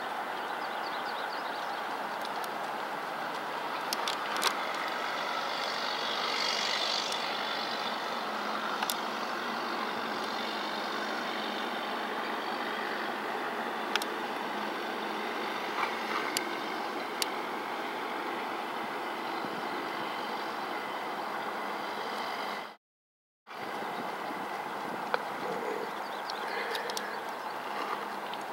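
Steady outdoor background noise with a few short sharp clicks scattered through it; the sound cuts out completely for about half a second about three-quarters of the way through.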